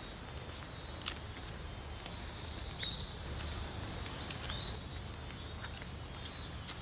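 Open-air ambience by rice paddies: two short bird chirps, about three and four and a half seconds in, over a faint high chirring and a steady low rumble. A few sharp clicks come and go, the loudest about a second in.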